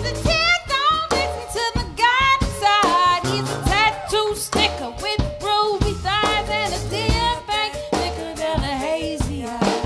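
A live band playing: a singer holding wavering notes with vibrato over a drum kit, with a sousaphone, upright bass and vibraphone in the band.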